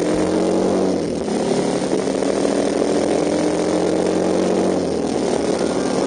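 Motorcycle engine accelerating under way, its pitch climbing, dropping at a gear change about a second in and climbing again, over a steady rush of wind and road noise.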